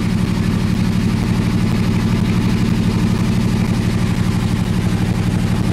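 Engine on a fishing boat running steadily: a low, even drone with a fast, regular pulse.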